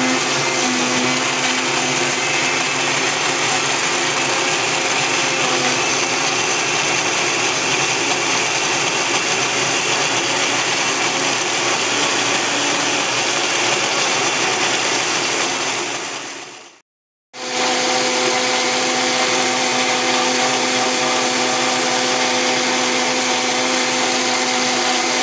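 Countertop blender motor running steadily at high speed, puréeing soaked guajillo chiles with garlic and onion into a red chile sauce. It stops briefly about two-thirds of the way through, then runs again.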